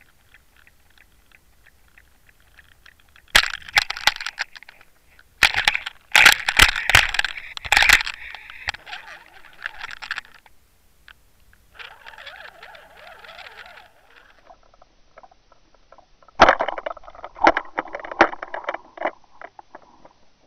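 Pike striking and thrashing on a perch lure, heard through an underwater camera on the line: irregular bursts of sharp knocks and crackling as the fish shakes the lure and the line jerks. There are three main bouts, the longest from about five and a half to ten seconds in, with quieter stretches between.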